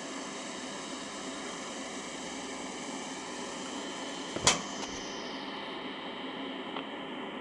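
Steady fan hiss with faint hum tones, broken by one sharp click about four and a half seconds in and a faint tick near the end.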